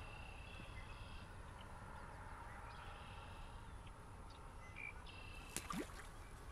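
Birds singing, one repeated song about a second long heard three times, over a steady low rumble of wind. A short sharp sound near the end is the loudest moment.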